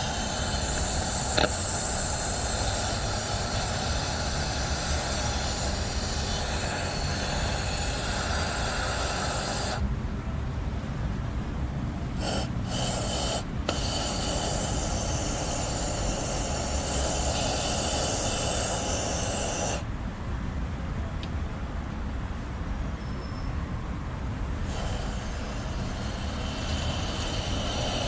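Aerosol engine and fuel-system cleaner spraying from the can in hissing bursts: one long spray of about ten seconds, two brief spurts, another long spray, then a fresh spray starting near the end. This is the dose being put into the fuel tank. A steady low rumble runs underneath.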